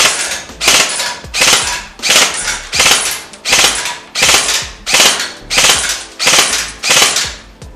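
G&G PCC-9 airsoft electric gun firing in single-shot mode: about eleven shots one after another, roughly one every 0.7 seconds, each a sharp snap of the gearbox cycling.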